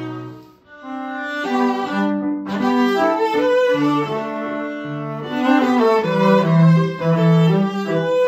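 Violin and cello playing a melody together over sustained low cello notes, breaking off briefly about half a second in and then resuming.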